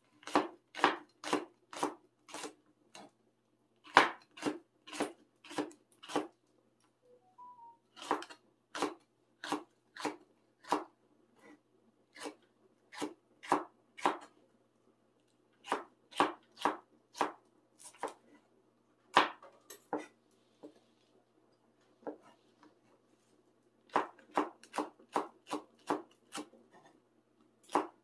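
Kitchen knife chopping chili peppers on a cutting board: sharp strokes about two a second in runs of several, with short pauses between runs.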